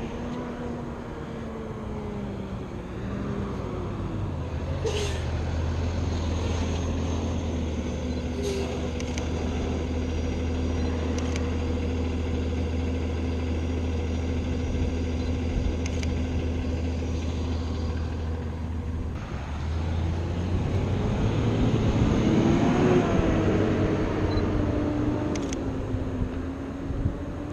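Road traffic: a large truck's engine running steadily, with a vehicle passing by about 22 seconds in. A few short, sharp clicks of a camera shutter sound over it, about five in all.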